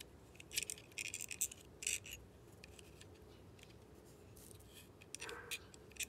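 Digital caliper's steel jaws sliding and clicking against a small metal screw: light metallic clicks and scrapes in two short spells, one about half a second in and one near the end.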